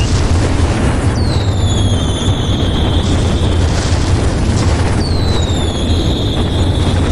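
A continuous barrage of fireworks: dense booming and crackling explosions, loud throughout. Two whistling rockets are heard, one about a second in and one about five seconds in, each a high whistle that slides down in pitch and then holds.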